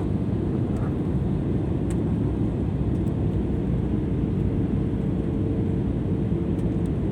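Airliner cabin noise in flight: a steady low rumble of engines and rushing air, with a faint constant hum.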